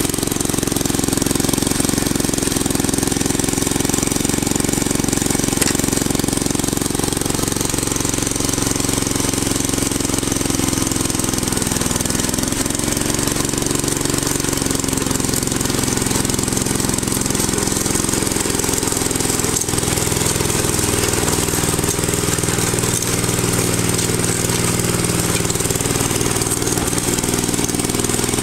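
Honda G35 single-cylinder four-stroke engine on a Honda F400 tiller, running steadily after being repaired with a donor engine block.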